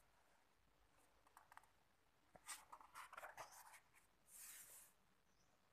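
Faint rustling and crackling of the paper pages of an old hand-bound book as a page is turned, ending in a short swish about four and a half seconds in.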